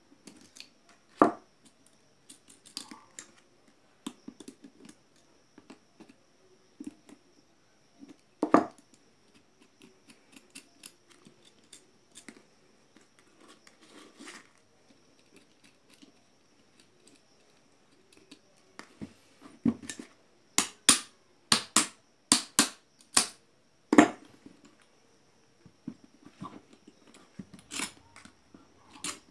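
Metal clicks and knocks from pliers and small steel nuts as the nuts are unscrewed from a small induction motor's bolts and set down on a table. The knocks are scattered, with a few louder strikes and a quick run of sharp clicks about two-thirds of the way through.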